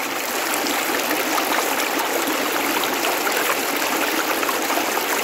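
Water rushing down a narrow stone-lined channel, a steady, even splashing rush.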